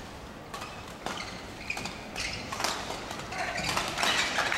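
Badminton rally: sharp racket hits on the shuttlecock and quick player footsteps on the court, getting busier and louder over the last second or so.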